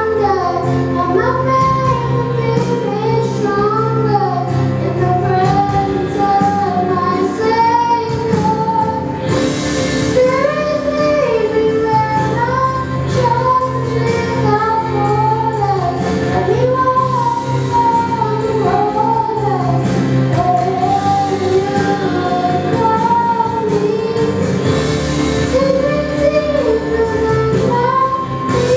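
A young girl singing a slow solo song through a microphone, with long held, gliding notes over steady instrumental accompaniment.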